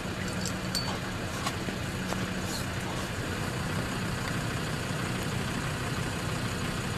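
An engine idling steadily with a low, even hum, and a few light clicks in the first few seconds.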